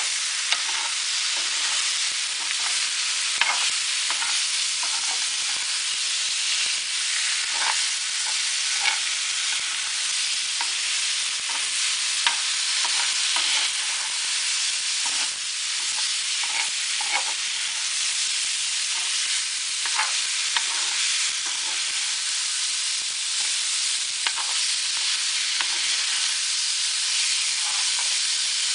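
Stir-fry of vegetables and ground beef in sauce sizzling steadily in a frying pan while it is stirred, with scattered short taps and scrapes of the utensil against the pan.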